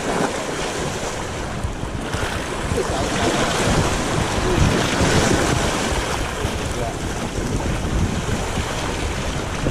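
Choppy sea waves washing and splashing, with wind rumbling on the microphone.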